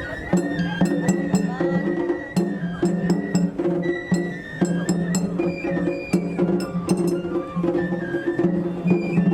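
Japanese festival hayashi music: a high, stepping melody over quick, sharp percussion strikes and a pulsing low beat.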